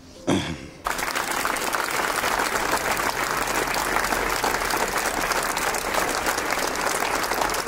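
A crowd applauding steadily, starting abruptly about a second in; just before it, a man's voice is briefly heard.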